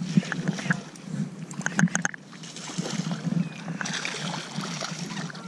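Small waves lapping and splashing irregularly against the hull of a small fishing boat, with a few brief clicks and a steadier hiss near the end.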